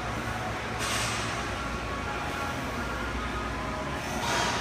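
Steady gym room tone: a low hum with an even hiss, such as a running fan gives. Two short swells of hiss stand out, about a second in and again near the end.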